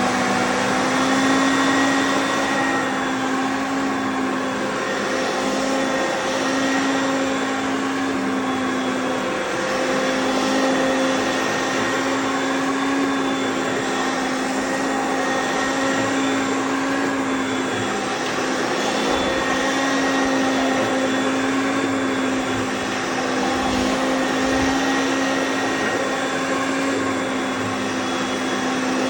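Hoover Concept Two Electronic upright vacuum cleaner running steadily, its motor hum holding one pitch with slight swells in level.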